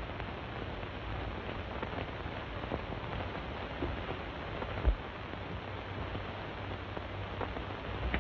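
Steady hiss and crackle with a low hum from a worn 1930s optical film soundtrack, with one short thump about five seconds in.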